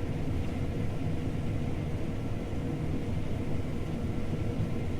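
John Deere T670i combine running steadily while cutting spring barley, heard from inside the cab: an even low rumble with a faint steady whine above it.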